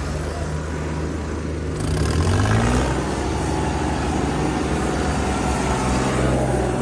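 Tractor engine running, revving up about two seconds in and then holding at higher revs.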